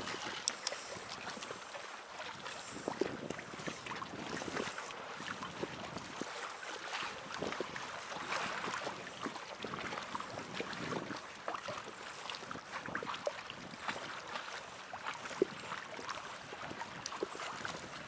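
Small waves lapping and slapping against the hull of an inflatable packraft, with light clicks, knocks and rustles of fishing tackle being handled.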